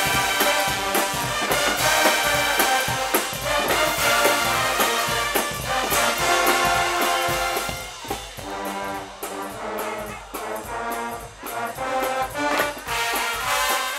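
Guggenmusik carnival band playing, brass (trumpets and trombones) over pounding drums. About eight seconds in the drumming thins out and the music gets quieter, then swells again near the end.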